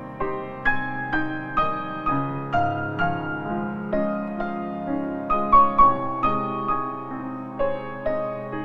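Background piano music, a slow melody with notes struck about two or three times a second.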